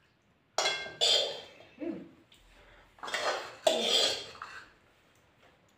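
Steel serving spoon clinking and scraping against a stainless steel bowl and plates. There are several short, ringing clatters, grouped around a second in and again around three to four seconds in.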